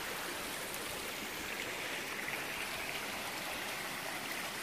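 Small, fast-flowing stream running over rocks and shallow riffles: a steady rush of water.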